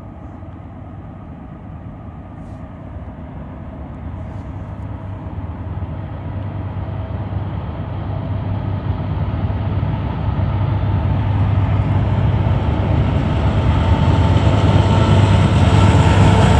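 Union Pacific diesel locomotives at the head of a freight train approaching: a low engine drone that grows steadily louder, with a faint steady whine coming up near the end.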